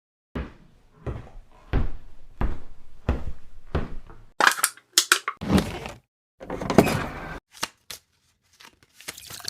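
A series of six dull thuds at an even pace, about one every 0.7 seconds. Then comes a stretch of crackling, crunching noise and two sharp clicks near the end.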